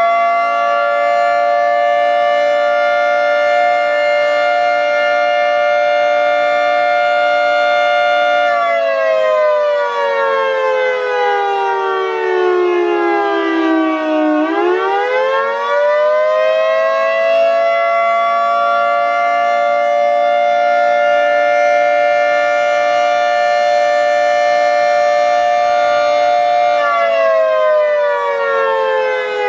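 Federal Signal 2T22 two-tone outdoor warning siren sounding its dissonant two-note chord in a wail: held at full pitch, it winds down about eight seconds in to a low point around fourteen seconds, winds back up to full pitch and holds, then starts winding down again near the end.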